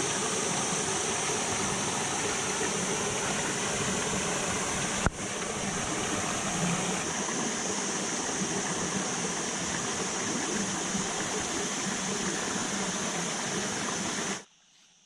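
Steady rush of running water, with a single brief click about five seconds in; the sound cuts off abruptly near the end.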